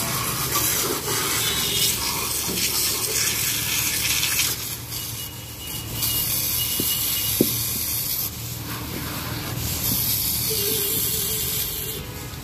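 High-pressure water jet from a pressure-washer lance hissing as it sprays an engine block and the wet concrete floor around it. The hiss drops twice for a second or so, about four and eight seconds in, then comes back up.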